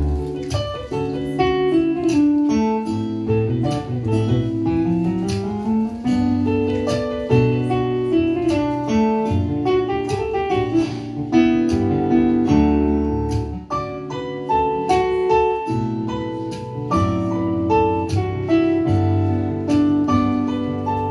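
Yamaha MO8 synthesizer keyboard played solo on a piano sound in a jazz style: held chords and a moving melody over a stepping bass line.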